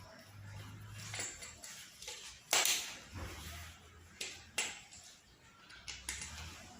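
Light clicks and knocks of small plastic and metal parts being handled while a power socket and switch are wired, about five in all, the loudest about two and a half seconds in.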